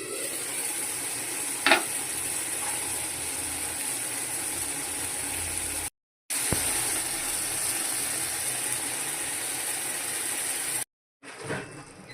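Fish frying in hot oil, a steady sizzle with one sharp knock about two seconds in. The sound cuts out abruptly twice.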